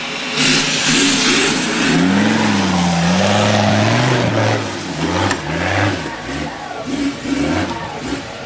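Off-road 4x4's engine revving hard as it climbs a steep dirt bank, the pitch rising and falling, with spinning tyres throwing dirt. Over the last few seconds the revs come in short, choppy blips.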